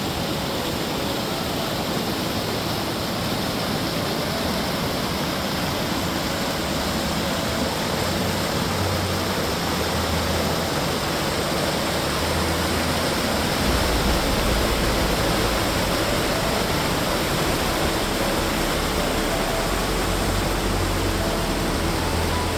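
Waterfall and creek rushing in a steady, loud wash of water noise. A low rumble swells in and out beneath it, strongest past the middle.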